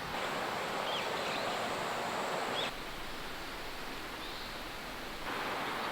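Steady rushing outdoor ambience with no clear single source. It shifts abruptly in level twice, as the footage is cut, and a few faint, short high chirps come through.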